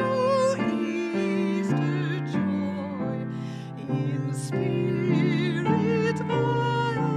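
Solo soprano singing a slow sacred song with wide vibrato over sustained accompaniment chords, with a brief breath between phrases about three and a half seconds in.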